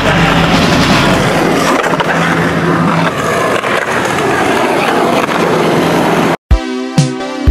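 Loud background music with a low held note that comes and goes. About six seconds in it cuts off abruptly, and electronic music with a sharp, regular beat starts.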